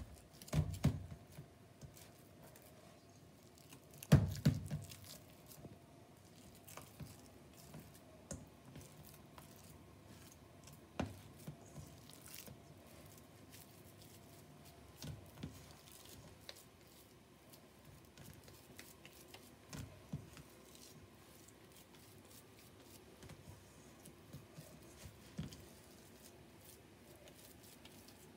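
Soft squishing and patting of a ground-pork hamburger mixture as it is pulled into four portions and shaped by hand in a stainless steel bowl. A few louder thumps stand out, the loudest about four seconds in.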